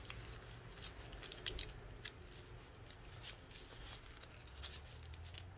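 Plastic piping bag crinkling as gloved hands twist and tie off its filled end: a faint, irregular run of small crackles.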